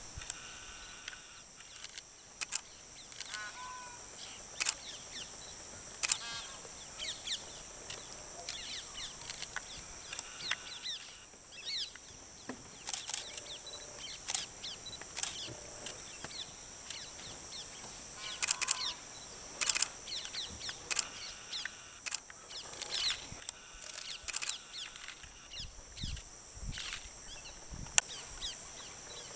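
Outdoor ambience: scattered bird chirps and calls over a steady high-pitched hum, with frequent short sharp clicks.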